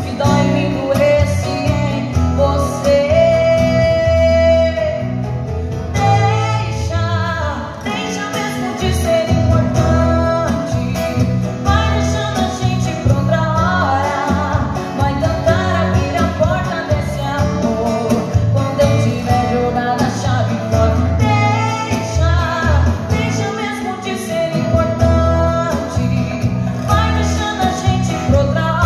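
A woman singing a sertanejo song into a microphone, with an acoustic guitar accompanying her through a PA system. She holds one long note about three seconds in.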